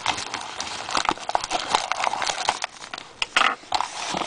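Paper mailing envelope being torn and pulled open by hand: a dense crackling rustle of paper. It dips briefly about three seconds in, then comes back in a short burst.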